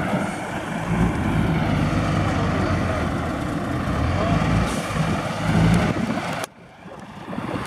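A large diesel engine running steadily with a low rumble. The sound drops out abruptly near the end, then returns.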